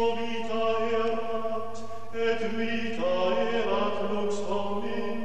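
Background music of voices singing a slow chant over a steady held drone note, the melody above moving from note to note every second or two.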